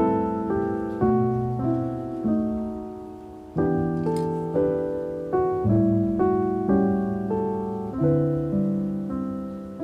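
Background piano music: a gentle melody of struck notes and chords, each fading away before the next, with a short lull about three seconds in.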